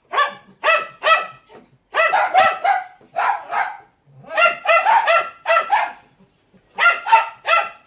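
Dachshunds barking rapidly in quick groups of several high barks, with short pauses between the groups.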